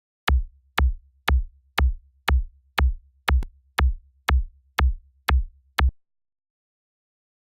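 Synthesized electronic kick drum playing a steady beat, about two hits a second, each a sharp click with a short deep thump. It stops about six seconds in.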